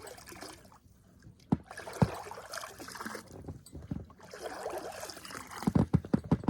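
A man urinating: a trickling stream of liquid splashing, with a few knocks near the end.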